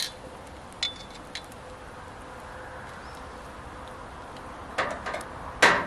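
Charcoal fire burning under an empty metal grill grate, a steady faint hiss, with a couple of light metallic clicks early and louder clacks of metal grilling tongs near the end.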